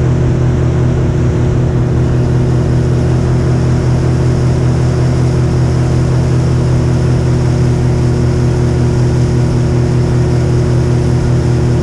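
Small boat's outboard motor running at a steady speed under way, an even engine hum that holds one pitch without revving up or down.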